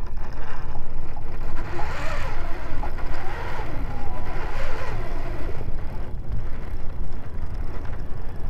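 Heavy wind buffeting the microphone, a steady low rumble. Through it, from about half a second to six seconds in, faint music with a wavering voice plays from a phone's Bluetooth speaker.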